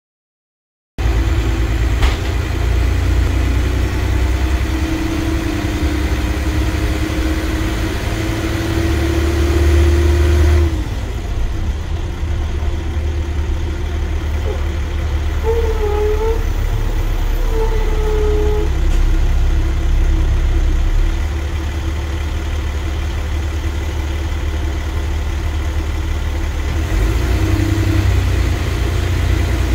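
Dennis Trident double-decker bus heard from inside on the upper deck: the diesel engine and gearbox pull with a rising whine for several seconds, which drops away about ten seconds in. The bus then runs on under way with a few short squeaks, and the pitch climbs again near the end.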